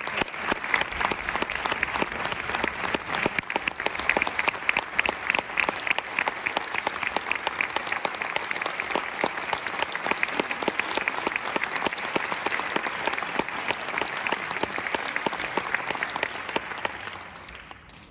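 Concert audience applauding, many hands clapping steadily, the applause dying away near the end.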